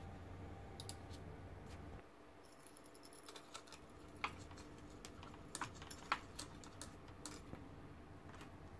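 A low hum that stops about two seconds in, then a series of sharp plastic clicks and taps as a swivel USB flash drive is pushed into the USB socket of a TV controller board. The loudest click comes about six seconds in.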